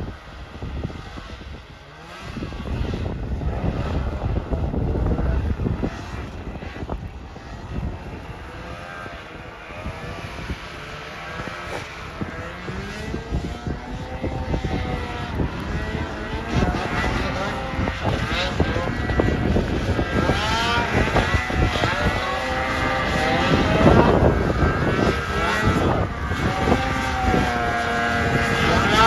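Snowmobile engine revving, its pitch rising and falling again and again, louder through the second half.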